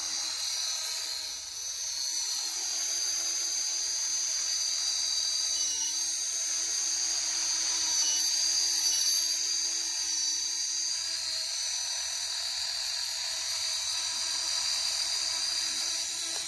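Engine running with a steady, high-pitched squeaky whine over it, swelling slightly about eight seconds in. This is the annoying squeak the owner hears when blipping the throttle.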